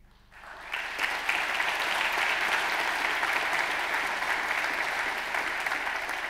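Audience applauding: the clapping swells in within the first second and then holds steady as a dense, even patter.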